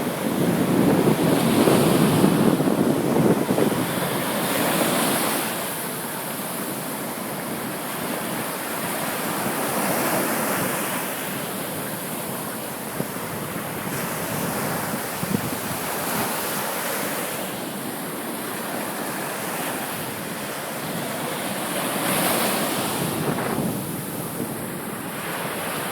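Ocean waves breaking and washing in, a steady rushing that swells and eases every few seconds, loudest in the first five seconds.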